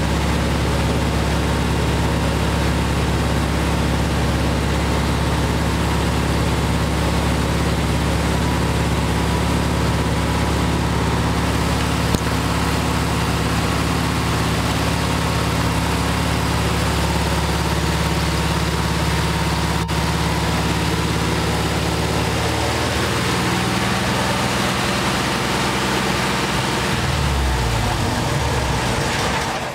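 Air-cooled 36 hp VW flat-four engine running at a fast idle, set high so its 150-amp alternator keeps the battery charging while carrying a space heater's load through an inverter. Over the last several seconds the engine slows in steps, and it stops at the very end.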